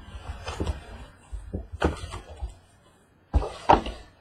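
A few short knocks and thuds, about four, spaced irregularly, from objects being handled and set down on a table.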